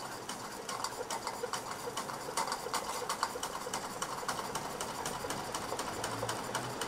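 Mamod SP8 model steam engine running steadily, a rapid even beat of light clicks over a steady hiss of steam. It runs at just under 10 psi, where the safety valve is lifting.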